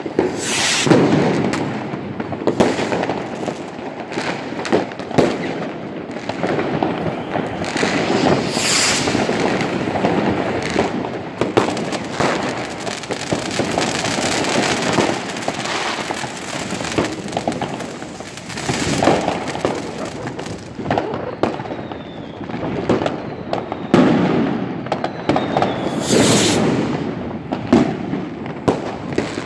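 New Year's Eve fireworks: a continuous, irregular barrage of firecracker bangs and rocket bursts. Three longer hissing rushes stand out, about a second in, around nine seconds and near the end.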